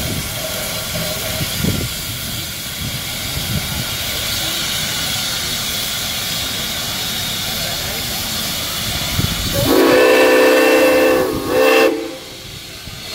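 Small tank steam locomotive standing at a platform with steam hissing steadily, then its steam whistle blowing one long blast of about two seconds and a short second blast that cuts off suddenly.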